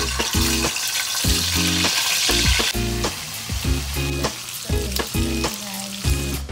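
Bacon strips sizzling as they fry in hot oil in an aluminium wok. The hiss is strongest for about a second a little before the middle, then settles back to a steady sizzle.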